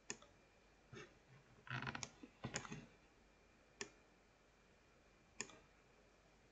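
Faint computer mouse clicks: single clicks a second or more apart, with two quick flurries of clicks about two seconds in.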